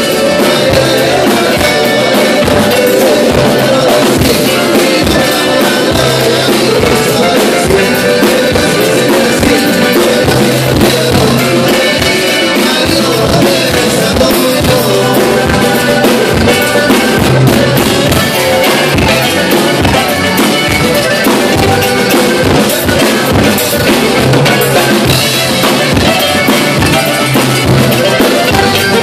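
A live norteño band playing loudly: drum kit, bajo sexto, accordion and keyboard, an instrumental stretch with no singing.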